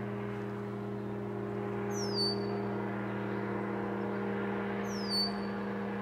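Powered paraglider's engine droning steadily at a constant pitch. A bird gives a short whistle that falls and then levels off, twice, about three seconds apart.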